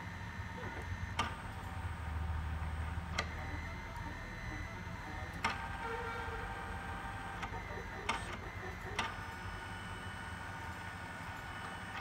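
Screen protector cutting plotter running through a cut: its motors hum and whine in steady tones that shift in pitch as the cutting head travels, with about five sharp clicks along the way.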